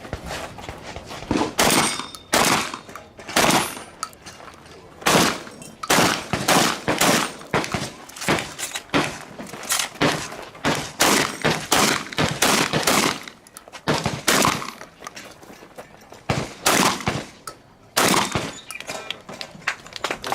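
Practical shotgun competition run: many shotgun shots in quick strings, often less than a second apart, with short pauses between the strings.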